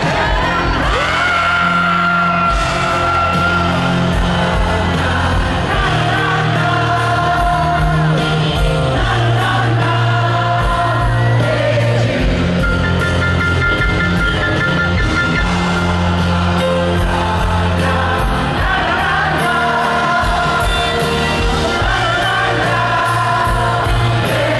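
Live rock band playing, led by piano with drums and guitars, with sung vocals and a large crowd singing along, heard through a phone among the audience in a stadium.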